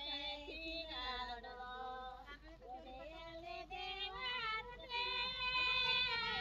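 Women singing a folk song unaccompanied while planting paddy. The melody moves in long, held notes.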